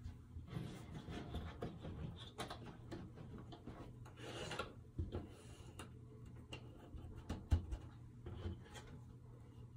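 Cardboard jigsaw puzzle pieces sliding and rubbing on a tabletop and being pressed into place, with scattered small clicks and a couple of sharper taps.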